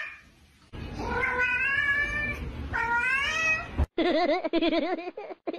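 A cat meowing twice in long, drawn-out calls, then a fast-wavering, warbling call as it eats from a bowl.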